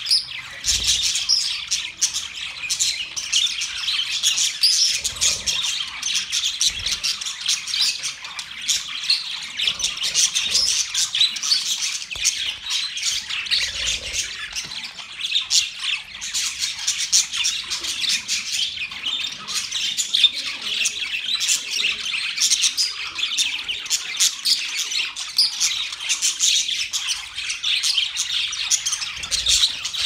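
A flock of budgerigars chirping and chattering nonstop, many high-pitched calls overlapping.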